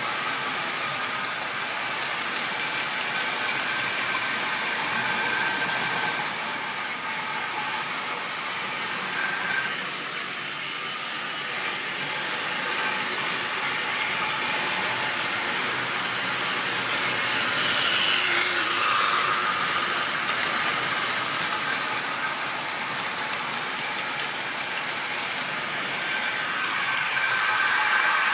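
Model railway trains running on track: the steady whirring hum of small electric locomotive motors and wheels on rail, with faint whining tones that drift up and down in pitch as the trains pass.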